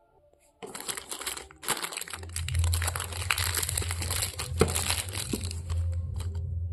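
Crinkling and rustling, like plastic wrapping being handled, starting about half a second in and stopping shortly before the end, with a steady low hum underneath from about two seconds in.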